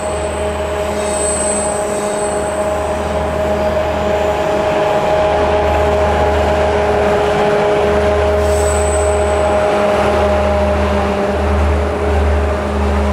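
Diesel locomotives at the head of a works train running under power: a steady engine drone over a low rumble. It grows louder over the first few seconds as the train draws near, then stays loud as the locomotives pass close by.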